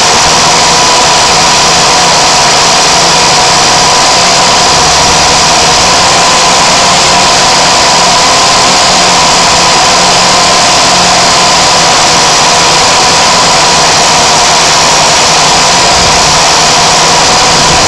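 Motor and propeller of a small flying craft, heard from a camera carried on it: a loud, steady drone with a high whine over rushing air, unchanged throughout.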